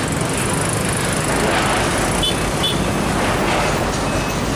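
Diesel engine of a FAW tractor-trailer truck running as it moves slowly past, over steady roadway traffic noise, with a motorcycle passing near the end.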